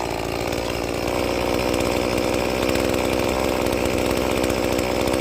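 Stock, unmodified Echo 2511P chainsaw's small two-stroke engine running steadily at a held speed after revving up.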